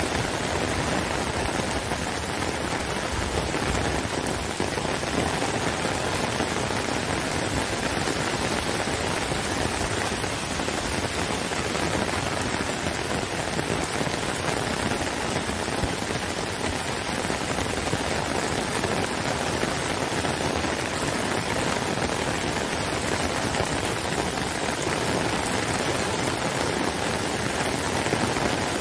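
Heavy rain falling steadily on wet brick paving, grass and trees: a dense, even rush of drops that holds at one level throughout.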